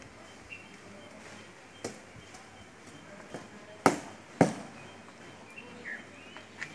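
Drill boots stamping on a concrete parade ground as a cadet marches out and halts: a few sharp isolated stamps, the two loudest about half a second apart in the middle.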